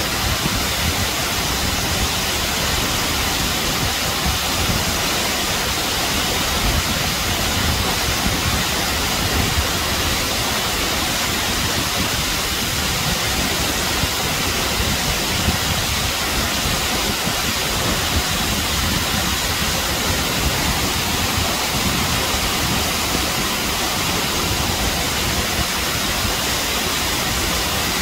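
Acquafraggia waterfall: a steady rush of water falling down and spraying onto the rock face.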